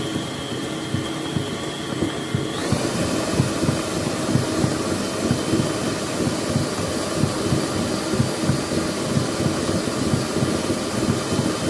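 Electric mixer kneading stiff kaak (Eid cookie) dough, its motor whine stepping up to a higher, louder speed about two and a half seconds in, with a rapid rhythmic thudding about four times a second.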